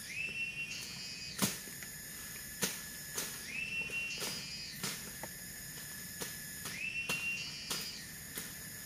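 A machete chopping through undergrowth: about half a dozen sharp strikes at irregular intervals, the loudest about a second and a half in. Behind them runs a steady high whistling tone that slides up in pitch about every three seconds.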